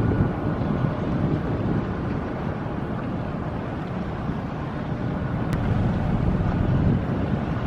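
Wind buffeting the camera's microphone: a low, unpitched rumbling rush that rises and falls.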